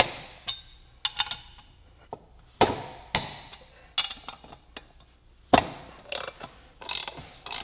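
Socket wrench clinking against the rear sprocket nuts on a motorcycle wheel as they are worked loose: sharp metallic knocks, some with a short ring. The knocks are scattered at first and come thick and fast near the end.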